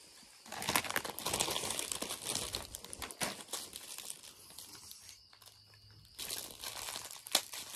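Plastic snack bags crinkling as they are handled, in two spells: the first about half a second in and lasting about three seconds, the second starting about six seconds in.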